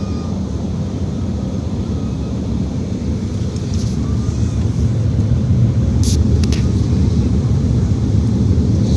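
Steady low rumble of engine and air noise inside an airliner's cabin during its descent, growing a little louder about halfway through, with a few brief clicks about six seconds in.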